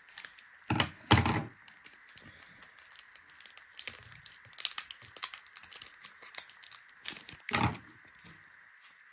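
Scissors snipping through the foil wrapper of a Pokémon card booster pack, twice about a second in, then crinkling and small clicks as the foil pack is handled and opened, with another louder rustle about seven and a half seconds in.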